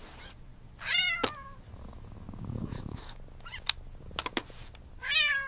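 A cat meows twice, each call high and falling in pitch, about a second in and again near the end, with a few short clicks between.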